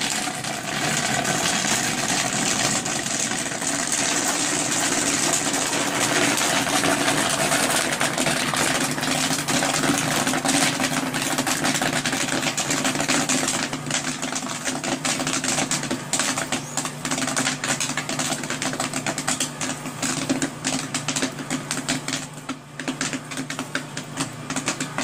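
Popcorn popping rapidly in a commercial kettle popper: a dense crackle of pops over the steady hum of the machine. The popping thins out somewhat in the second half.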